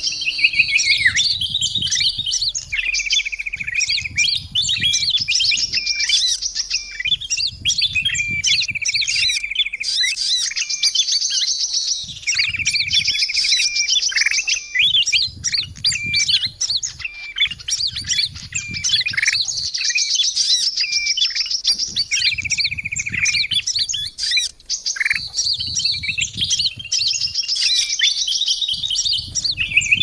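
Bird-lure recording of a bulbul (kutilang emas) mixed with the calls of many small birds: dense high chirps and fast trills, with a lower trill coming back about every five seconds as the recording loops.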